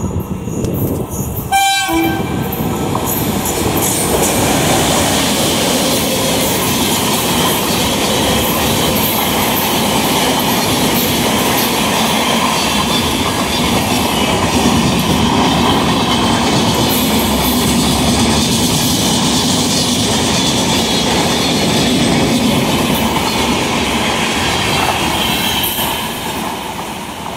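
Rajdhani Express of LHB coaches, behind a WAP-7 electric locomotive, running through a station at speed without stopping: a steady loud rush and clatter of wheels on the rails that dies away near the end as the last coach goes by. A horn sounds briefly near the start.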